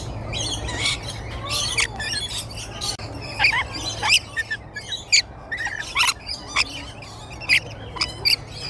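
A flock of lorikeets giving short, sharp, screechy calls at irregular intervals, several of them loud and close, as the birds squabble over a nectar feeding.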